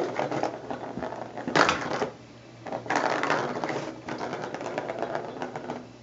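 Plastic ball rattling and clattering around the plastic track of a Bergan Turbo Scratcher cat toy as a cat bats at it: two bursts of rapid clicking, the second starting about three seconds in after a short lull.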